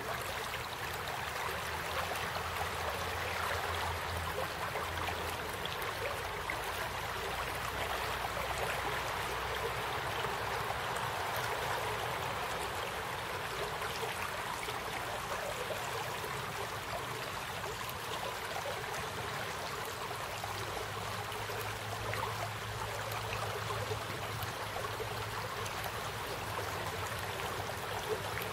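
Small brook in flood after a storm, its muddy floodwater rushing steadily through the channel and over the banks.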